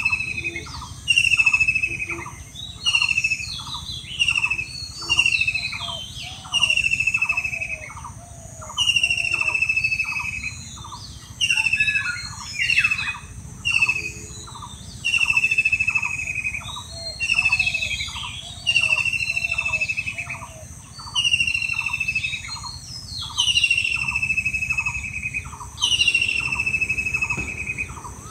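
Repeated squealing animal calls, each a single high note falling in pitch, about one every one to one and a half seconds, over a fast, even pulsing lower down.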